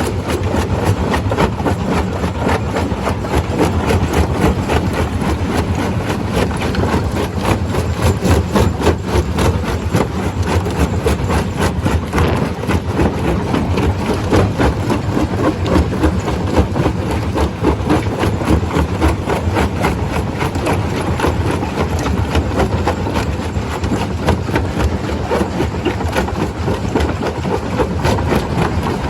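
Stone crusher running, a loud, steady machine drone with a dense, rapid clatter throughout.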